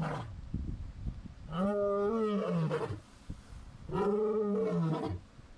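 Big cat roaring: two drawn-out calls about two seconds apart, each about a second long, rising then falling in pitch, after the tail of an earlier call at the start.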